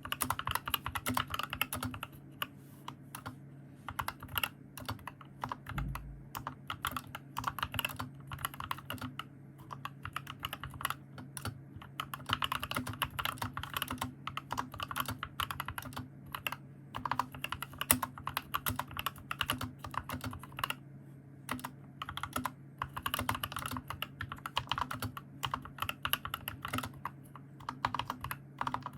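Fast, continuous typing on an Epomaker SK61s 60% mechanical keyboard fitted with lubed Gateron Clear optical linear switches and band-aid-modded stabilizers. This is a type test of the modded keyboard's sound.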